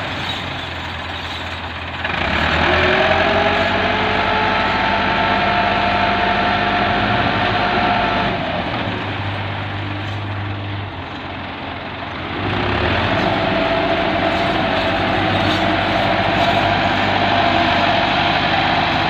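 Massey Ferguson 385 tractor's diesel engine working hard as it hauls a loaded trolley up out of a dirt pit. The revs climb about two seconds in, ease off for a few seconds in the middle, then the engine pulls hard again.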